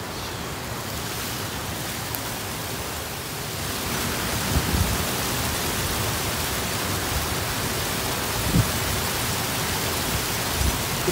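Steady rush of river water flowing over a low submerged weir, growing louder about four seconds in, with a few soft low thumps.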